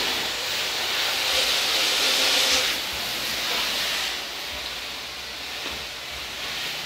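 Water spraying from a hose nozzle onto a car's body as it is rinsed, a steady hiss that is loudest for the first two and a half seconds and drops back twice as the spray moves.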